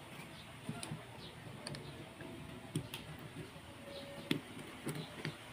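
Faint, scattered clicks and light metal ticks of 1911 pistol parts being handled as the recoil spring and its plug are worked into the slide.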